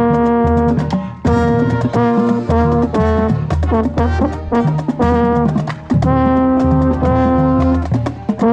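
Marching band brass playing a field show, held notes moving every half second or so, with a euphonium right at the microphone and drum hits under it.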